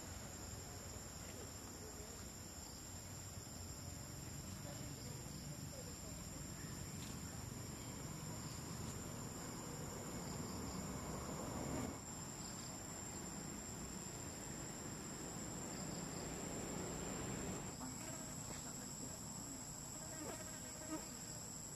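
Steady high-pitched drone of insects, over a low outdoor background hiss.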